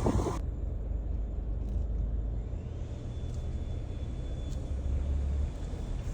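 A car driving, with a steady low road rumble. A louder rushing noise cuts off abruptly about half a second in.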